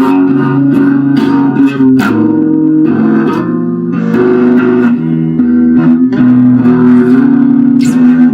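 Instrumental stretch of a song: guitar and bass guitar playing held notes, with sharp percussive hits at a steady beat.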